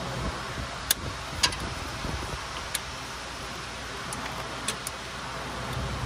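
A few scattered sharp clicks and clinks of parts and tools being handled around a car's starter motor, over a steady low background hum.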